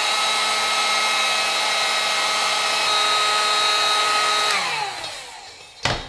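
Electric heat gun running, shrinking heat-shrink tubing over a battery cable lug: its fan motor gives a steady whine. About four and a half seconds in it is switched off and winds down, falling in pitch, and a sharp click follows near the end.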